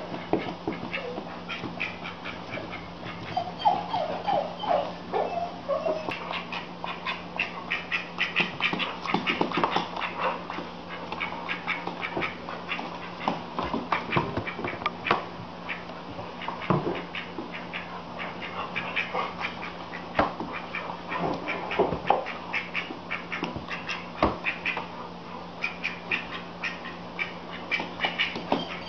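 A cat and a duck tussling on a wooden floor: a constant run of light scuffs, taps and patters, with a few short calls between about four and six seconds in.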